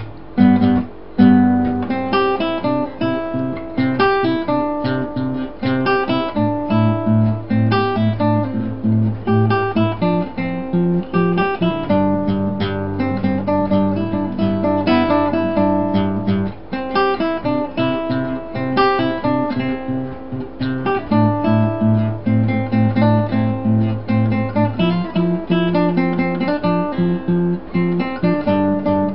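Background music: acoustic guitar, plucked and strummed in a steady rhythm.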